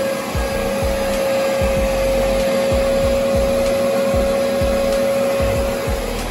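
Canister vacuum cleaner running steadily, a constant motor whine over rushing air.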